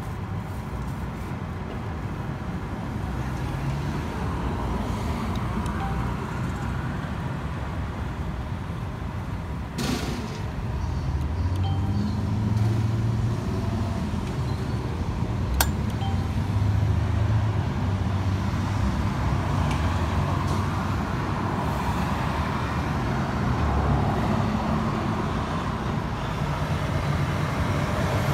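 Station ambience of steady traffic-like rumble with low swells, as vehicles or a train pass. Two sharp clicks come through, about ten and sixteen seconds in.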